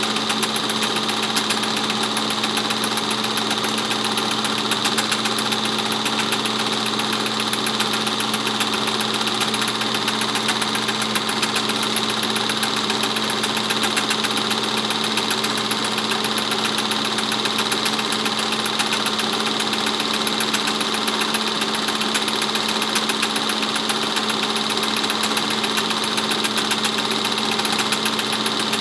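Film projector running: a steady mechanical whirr with a fast, even clatter as the film advances, over a constant hum.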